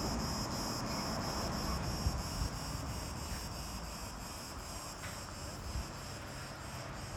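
Steady high-pitched insect buzz, pulsing about four times a second, over a low wind rumble on the microphone.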